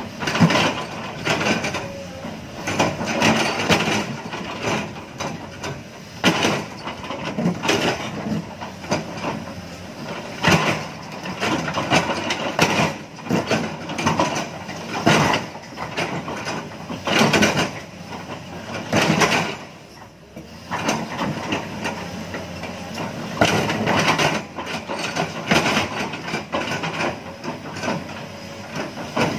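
Excavator loading soil into a dump truck: a diesel engine running under irregular clanks and knocks, several a few seconds apart, from the bucket and falling earth.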